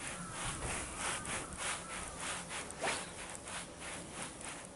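Fishing reel being cranked steadily on a retrieve, a rhythmic rasping whirr about three or four times a second that thins out near the end.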